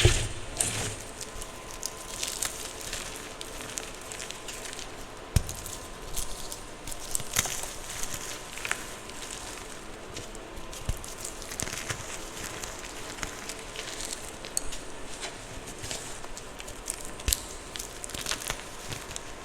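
Gym chalk being crushed: an irregular run of crunchy crackles and soft snaps, with a sharper crack right at the start and another about five seconds in.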